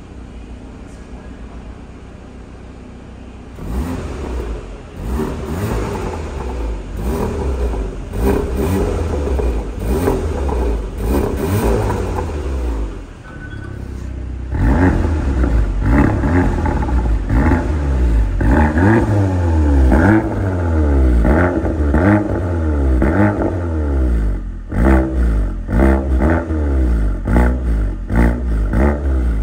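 Porsche Macan 2.0T's turbocharged four-cylinder engine idling and then revved again and again through an aftermarket Stage 3 valved exhaust with its valves closed. About fourteen seconds in the valves open and the idle and revs turn louder and deeper, with several quick throttle blips near the end.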